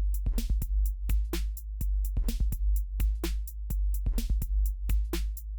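Electronic background music with a drum-machine beat: a steady low bass under regular, sharp percussion hits.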